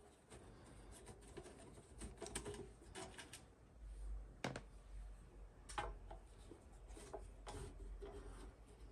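Faint scattered clicks, taps and light scrapes of a screwdriver and hands working on an oscilloscope's case while its screws are taken out, with a low handling rumble in the second half.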